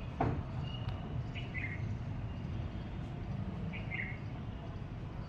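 Pet parrot giving two short chirps about two and a half seconds apart, over a steady low background rumble, with a small knock just after the start.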